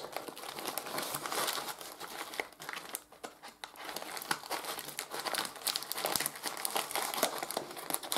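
Brown kraft paper wrapping crinkling and rustling as it is handled and cut open with scissors, a dense run of irregular crackles with a short lull about three seconds in.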